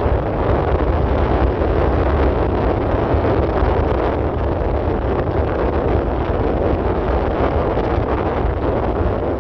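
Steady wind rush buffeting the microphone while riding, a loud, even roar with no clear engine tone.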